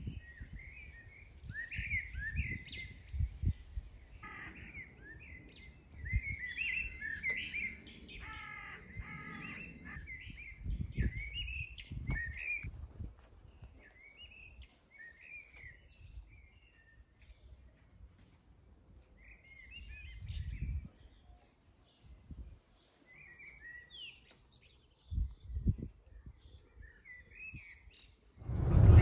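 Small garden birds chirping and singing, many quick calls and trills, busiest in the first half and sparser later, with occasional low rumbles underneath.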